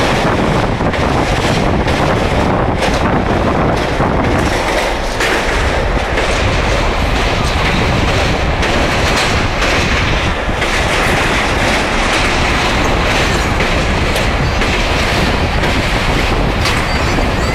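Kovai Express passenger train running at speed across the Kaveri river bridge, heard from on board: a steady, loud rumble with the wheels clattering over rail joints.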